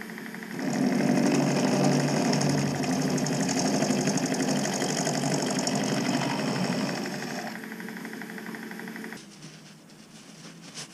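Milling machine end mill cutting a chainsaw crankshaft web, a loud rough cutting noise over the steady whine of the spindle. The cut comes in about half a second in and eases off around seven seconds, and the machine noise drops away about nine seconds in.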